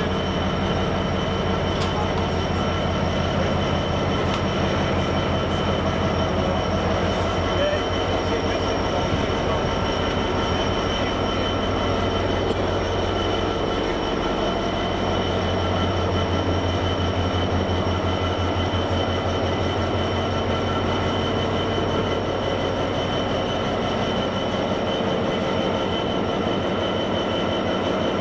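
Class 66 diesel locomotive idling: the steady low throb of its two-stroke EMD V12 engine, with a thin steady high whine over it.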